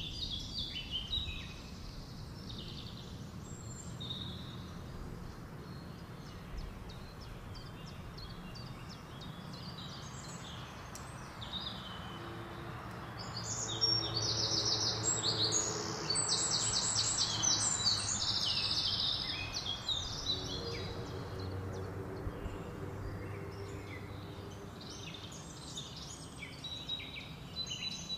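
Wild songbirds singing, with a stretch of loud, rapid trilling song starting about halfway through and lasting several seconds, over a steady low outdoor rumble. A faint steady hum sits beneath the middle part.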